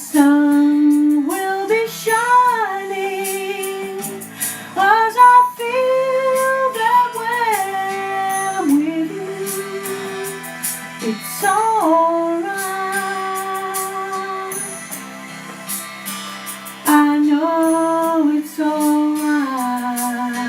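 A woman singing a slow ballad in long held notes with vibrato, pausing briefly between phrases, over an instrumental accompaniment.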